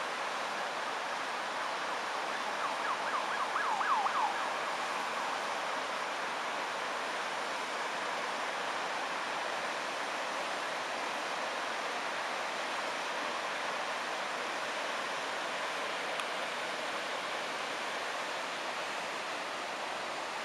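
Steady rushing of the flooded Vltava river. About three seconds in, a quick run of about eight short chirps, each falling in pitch, rises briefly above the rush.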